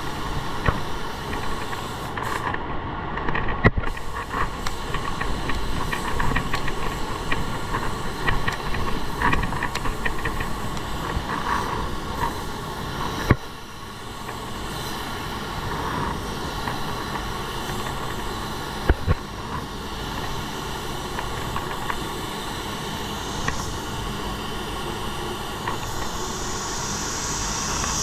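Automotive paint spray gun hissing steadily while a control coat of metallic basecoat is sprayed, with a few light clicks, a brief drop about 13 seconds in, and a brighter, higher hiss near the end.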